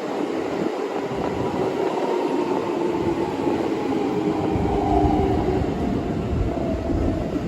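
Yellow Happy Train electric train running past, its rumble building after a few seconds, with a whine that slowly falls in pitch.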